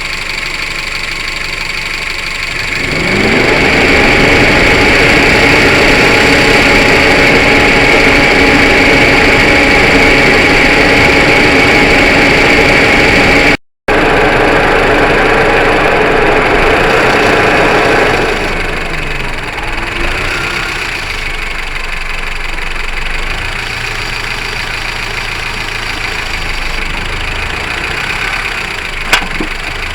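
Honda Civic hatchback running, the sound getting louder about three seconds in with a brief rising tone and falling back after about eighteen seconds, with a single sharp click near the end. The car is being recorded for a knock from the right side near the wheel.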